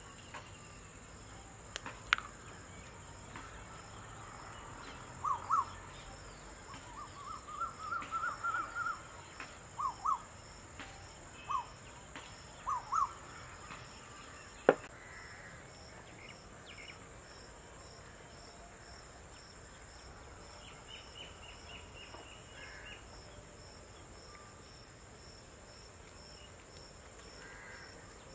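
Outdoor ambience: a steady high insect drone with a regular chirping pulse, and a bird giving short, repeated rising call notes for several seconds. A single sharp knock about halfway through, and a brief rapid ticking trill later.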